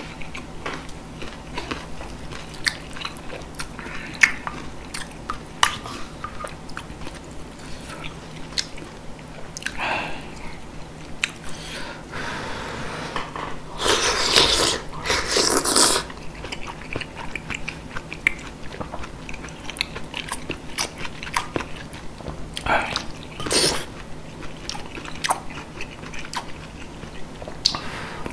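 Close-miked eating sounds of spicy beef soup (yukgaejang) with rice: wet chewing and small mouth clicks throughout, with a louder slurp of soup and strands about halfway through.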